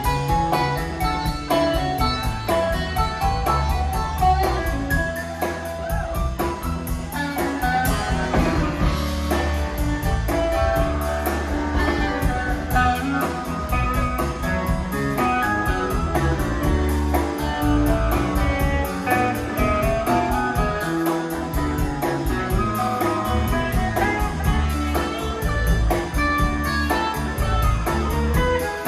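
Live electric blues-rock band playing an instrumental passage: electric guitar, electric bass, keyboards and drum kit, with a harmonica playing over them.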